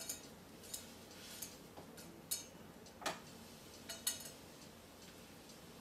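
Metal spoon stirring in a steel mixing bowl, knocking against its side in about six light, irregular clinks over the first four seconds.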